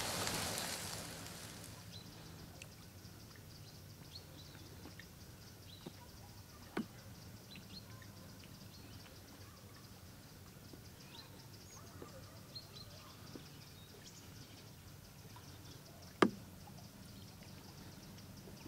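Potato slices sizzling in a frying pan over a campfire, fading out in the first second or two. Then faint outdoor quiet with scattered small ticks and one sharp knock about sixteen seconds in.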